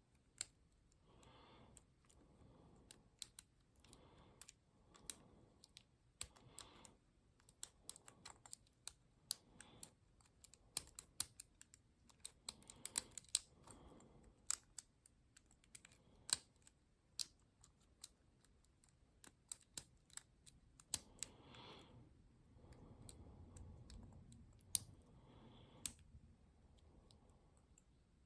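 Lock pick and tension wrench working the pins of a Yale closed-shackle padlock: irregular sharp metallic clicks and taps, in quick clusters, as the pins are probed and raked without the lock opening.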